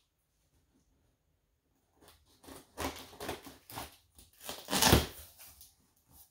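Scissors cutting through packing tape and cardboard at the top of a sewing-machine box: a run of short rasping cuts and scrapes starting about two seconds in, the loudest about five seconds in.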